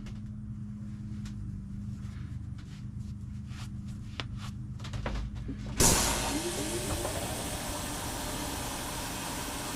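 An ultrasonic parts cleaner is switched on about six seconds in. It gives a sudden, steady hissing buzz as it starts cavitating the hot cleaning solution around the transmission parts. Before that there is only a low hum and a few faint clicks.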